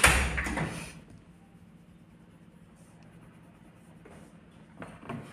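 Handling noise at a tabletop: a loud bump and rustle of hands moving paper cards in the first second, then quiet, with a brief paper rustle near the end.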